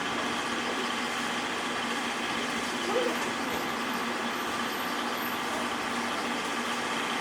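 Steady running noise inside a locomotive-hauled passenger coach: an even rumble with a constant hum.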